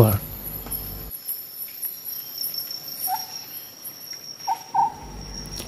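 Crickets chirring steadily at a high pitch, with a couple of short, faint calls about three seconds in and again near the end.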